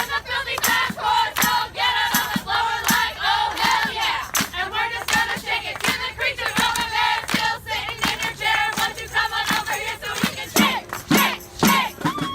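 Upbeat background music with a steady beat and wavering melodic lines.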